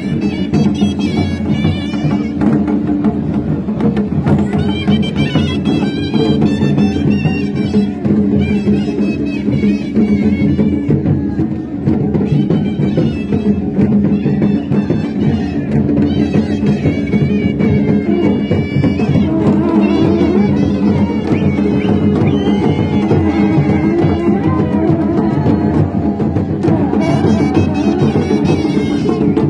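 Traditional folk music: a reedy wind instrument plays a wavering melody over a held drone, with drums beating along.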